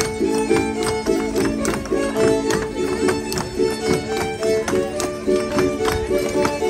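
A violin playing a traditional folk dance tune, with the dancers' feet stamping on the stage platform in a steady rhythm through the melody.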